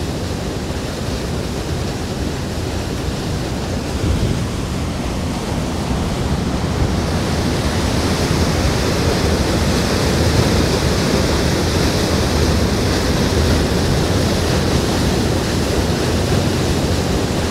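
Grotto Falls in spring flood, heavy with muddy snowmelt, plunging through a narrow rock slot into a churning pool. It makes a loud, steady rush like thunder, which grows louder about seven seconds in as the falls come into full view.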